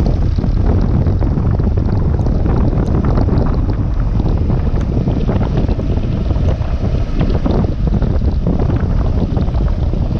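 Loud, steady wind rumble on the microphone of a camera riding on a Kawasaki KLR 650 dual-sport motorcycle, with the bike's running noise underneath.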